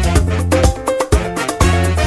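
Upbeat Latin-style background music with a steady beat and a strong bass line.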